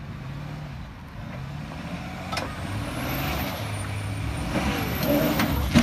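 Pickup truck engine working under load as it tows another pickup over rough ground, its note stepping up and down and growing louder. A faint high whistle rises and falls, and a few sharp knocks come about two and a half seconds in and near the end.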